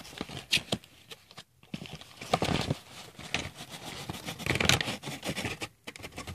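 Rustling and crinkling of a paper postal mailer envelope being handled and unpacked, in several irregular scratchy bursts.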